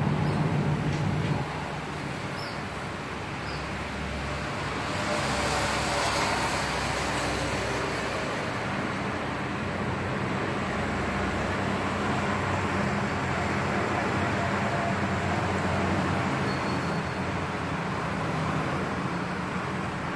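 Steady low mechanical rumble with a hum under a constant hiss, louder for the first second or so. A brighter hiss swells in for a few seconds near the middle.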